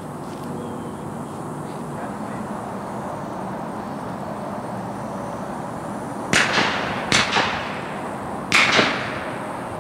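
Three shotgun shots in quick succession, the first about six seconds in, the last a little over a second after the second, each trailing off in a short echo.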